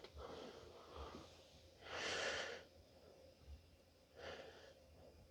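A person breathing close to the microphone: soft breaths, with one louder exhale about two seconds in and another a little after four seconds.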